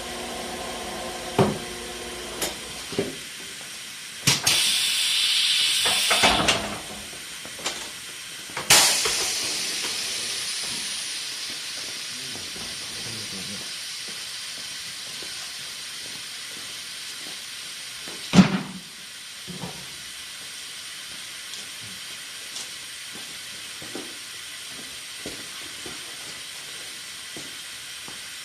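Compressed air hissing at a tire changer: a steady hiss with two loud rushes of air about four and nine seconds in, the second fading out slowly. A sharp knock about eighteen seconds in and scattered small clicks.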